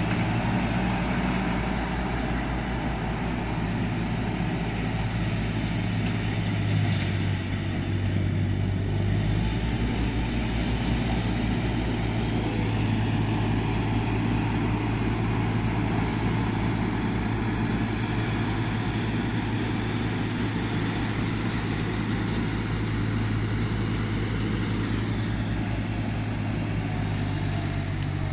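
Farm tractor running steadily while pulling a rotary mower across grass: a constant low engine drone that does not change.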